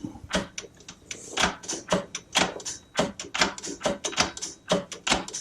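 Hand tools working on motorcycle shifter hardware: a run of irregular sharp clicks and knocks, a few a second, of tools against metal parts.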